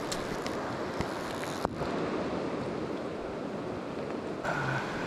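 Fast river current rushing steadily over riffles, with two short clicks about a second and a second and a half in.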